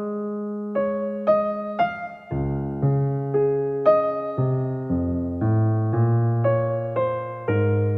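Background music: a slow, gentle piano piece, single notes and chords struck about every half second.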